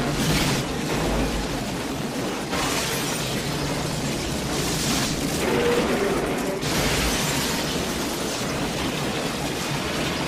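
Film sound effects of a train crash: a continuous heavy rumble and grinding, broken by several loud crashes and shattering.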